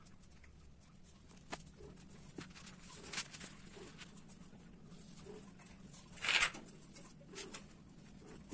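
Two cats mating: several faint, short low calls and a few light clicks, with one short hiss-like noise about six seconds in, the loudest sound, over a faint steady hum.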